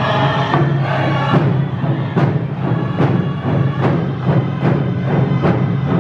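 Round dance singers beating hand drums. The singing stops about a second and a half in, and the drums carry on alone with a steady beat of about two and a half strokes a second.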